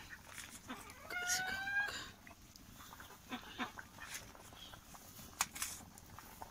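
A single drawn-out animal call about a second in, lasting about a second and rising slightly in pitch, followed by a few light clicks.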